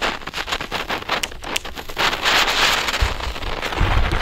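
A Silberwirbel ground spinner, a small youth firework, sputtering as it throws out silver sparks: dense crackling for the first couple of seconds, then a steadier hiss. Wind buffets the microphone in the last second or so.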